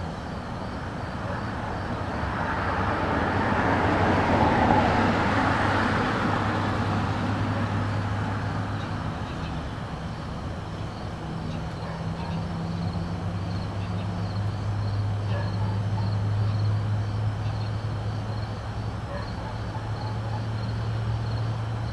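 A motor vehicle passing by on a road, swelling to its loudest about five seconds in and then fading away, over a steady low hum.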